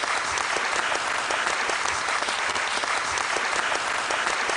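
Studio audience applauding, a dense and steady clapping.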